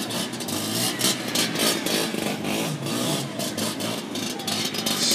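Vespa scooter engine revving up and down as the rider works the throttle to hold a wheelie, its pitch rising and falling.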